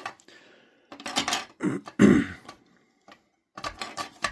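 Plastic Xbox controller parts being handled and fitted together: clusters of small clicks and rattles, with a louder, duller knock about two seconds in.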